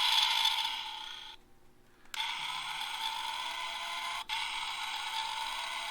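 Electronic sound effects from a vintage Bandai White Tiger Zord toy, set off by pressing its buttons. One effect fades out about a second and a half in. A second one starts about two seconds in and runs on steadily, with two short breaks near the end.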